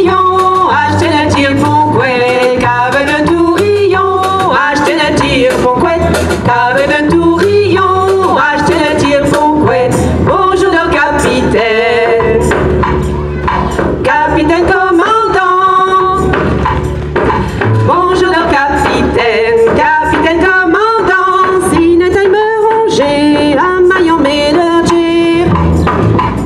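Live band playing: women's voices singing a melody over a drum kit and upright double bass, with frequent cymbal and drum hits.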